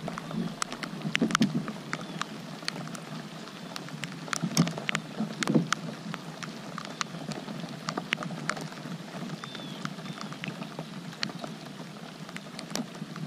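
Steady rain, with irregular sharp ticks of individual drops striking.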